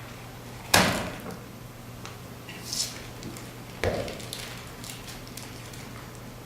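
Two sharp knocks about three seconds apart, each with a short ringing tail, and a brief hiss between them, over a steady low hum.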